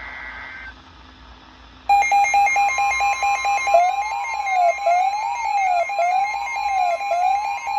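A weather radio alert starting: the end of a NOAA Weather Radio SAME data burst, a short buzzy two-tone chirp. About two seconds in, a loud alarm begins with rapid beeps that turn into a siren-like warble rising and falling about once a second, over a steady warning tone near 1 kHz.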